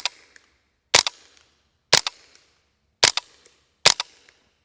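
Five semi-automatic shots from a suppressed Tippmann M4 Micro Elite .22 LR pistol firing standard-velocity ammunition, spaced about a second apart, each followed by a short echo.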